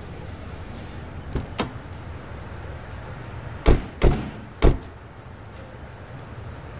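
Car doors slamming shut three times in quick succession, a bit over three and a half seconds in, after two lighter clicks about a second and a half in.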